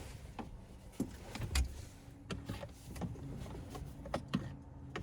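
Plastic dash trim panels being pressed into place: a string of irregular sharp clicks and knocks as the panel's clips snap into the dash, the loudest about a second and a half in.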